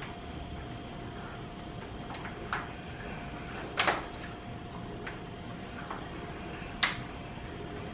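Kitchen handling sounds: a few light knocks and clicks, three of them clearer than the rest, spaced a second or more apart, over a steady faint hum.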